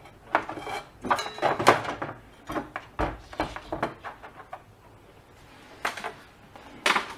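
Handling noise: irregular small knocks, clicks and rubs as fingers move the red silicone wires and the small ceramic ozone-plate connector on the table.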